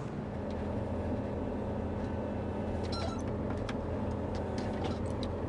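Combine's diesel engine idling steadily, with a few light clicks and knocks a few seconds in.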